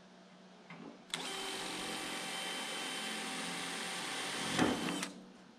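Cordless drill running at a steady whine for about four seconds, boring a drain hole into the steel tube frame of an IBC tote cage to let trapped rainwater run out before it rusts the tubes; it stops shortly before the end.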